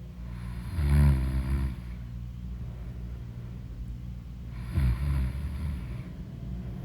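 A sleeping person snoring: two snores, each about a second long, roughly four seconds apart, over a steady low hum.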